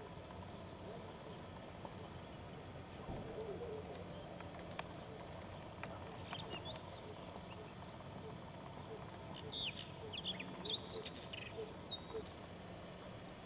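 White wagtail calling with short, high chirps, a few about six seconds in and a quicker run of them from about nine to twelve seconds.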